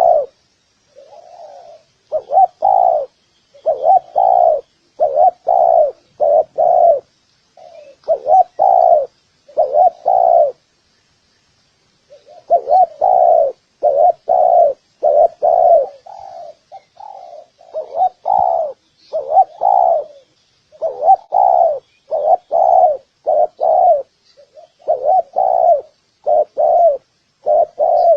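Spotted doves cooing: short, repeated low coo notes in quick phrases, with a pause of about two seconds roughly ten seconds in.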